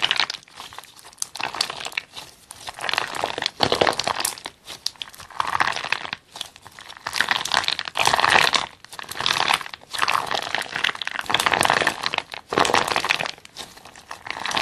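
Clear slime packed with yellow beads being squeezed and stretched by hand, giving crackling, squishy bursts with each squeeze and short quieter gaps between.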